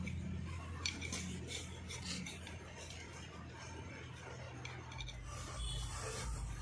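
Steel hand tools scraping and clicking against the cast-iron front plate of a Mahindra 265 DI tractor engine, in irregular rasping strokes, over a low steady hum.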